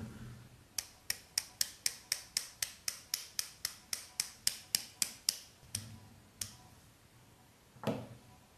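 A makeup brush tapped over and over, about four sharp clicks a second for some four seconds, shaking loose powder onto a plate; two slower taps follow, then a softer knock near the end.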